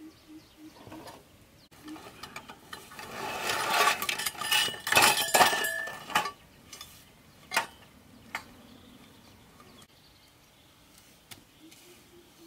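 Nylon carry bag rustling and the metal poles of a folding camp table clinking and rattling as the frame is pulled out and unfolded, loudest for a few seconds in the middle, then a few separate sharp clicks as the joints are set. A faint animal call pulses about four times a second at the start and again near the end.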